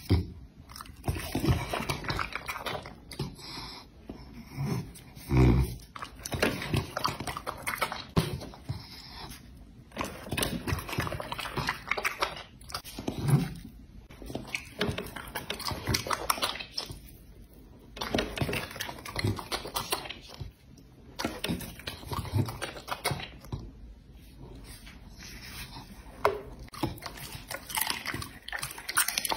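Dog chewing raw meat, with irregular wet chomps and clicks broken by short pauses.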